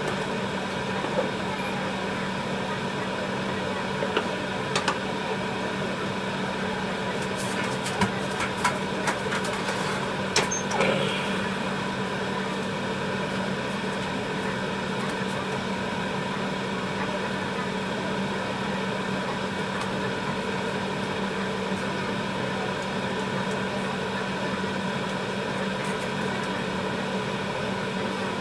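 A steady mechanical hum from kitchen equipment, with a few light clicks and knocks in the first ten seconds or so from a metal ladle stirring the pot of tteokbokki.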